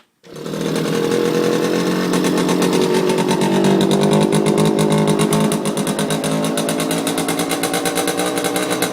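Yamaha YJ2 SS50 buzz bike's two-stroke engine starting right away and running with a steady, rapid buzz. It runs a little louder for the first five seconds, then settles slightly lower. This is its first start after standing for 35 to 40 years, with the carbs cleaned and the fuel pipes replaced.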